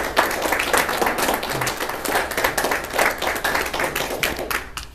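A small audience applauding with quick, dense clapping that dies away near the end.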